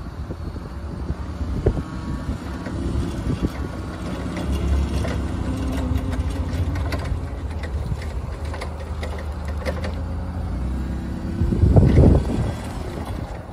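Mitsubishi FGC15K propane forklift's engine running steadily as the truck drives and turns, with a brief louder rush near the end.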